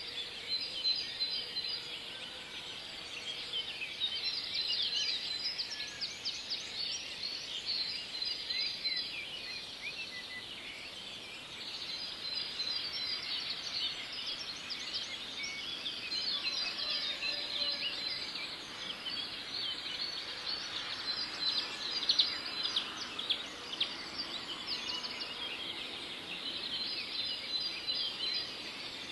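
A dense chorus of small birds chirping without pause, with a thin high trill that comes and goes.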